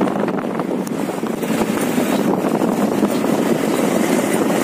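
Motorbike in motion: its engine running along with steady road and wind noise on the microphone, a continuous dense rushing sound.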